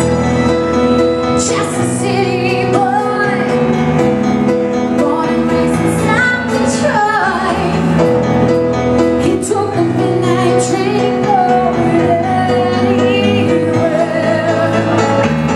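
A live rock band playing: a woman sings lead over electric guitar, electric bass and a drum kit, with cymbal hits through the song.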